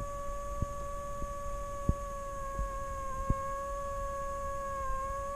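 Old loudspeaker driven by a function generator, sounding a steady pitched tone of roughly 560 to 570 Hz. The pitch dips slightly about three seconds in and again near the end as the frequency knob is nudged. A few faint clicks sound over the tone.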